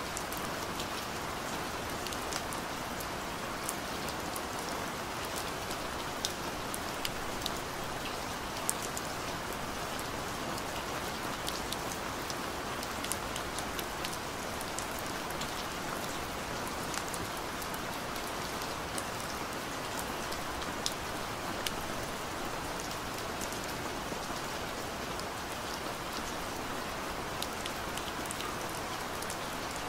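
Steady rain: an even hiss with many small, sharp drop ticks scattered throughout.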